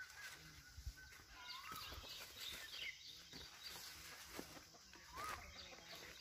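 Faint calls of free-range native chickens: a few soft rising-and-falling calls, about a second and a half in and again about five seconds in, with small higher chirps between.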